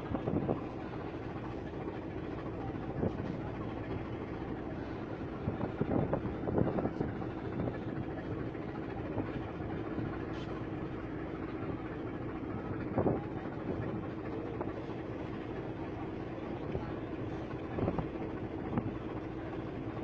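A ship's engine droning steadily under way, one constant hum beneath rushing water and wind, with a few brief louder gusts.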